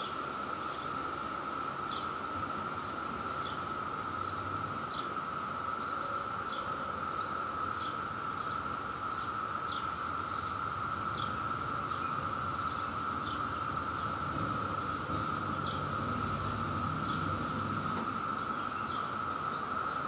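Chorus of Brood II periodical cicadas: a steady, unbroken drone from many males calling together. Short high chirps repeat about one to two times a second over it.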